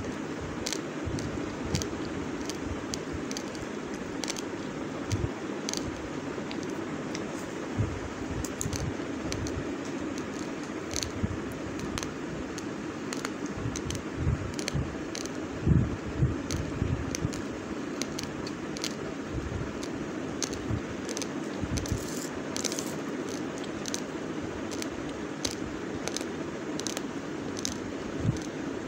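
Raw basmati rice grains being crunched and chewed close to the microphone: irregular sharp crackles and clicks, several a second, over a steady low background hum.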